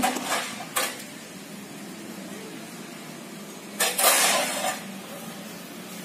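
Curved metal swords clashing against round metal shields in a sword-and-shield bout: sharp clangs near the start and about a second in, then a louder, longer run of clashing about four seconds in.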